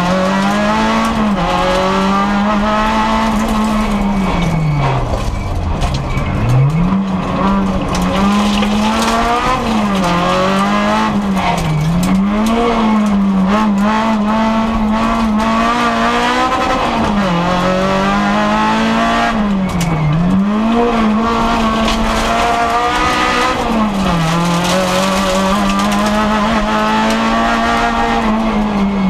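Rally car engine heard from inside the cabin, held at high revs, with the revs dropping sharply and climbing back again several times, the deepest drop about six seconds in, over road noise.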